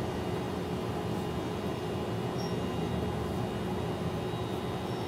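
Steady background rumble with a constant low hum and no distinct events.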